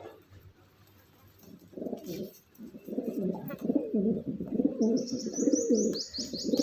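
Pigeons cooing: low, throaty rolling coos start about two seconds in and carry on without a break. In the last second and a half a rapid run of high chirps joins in.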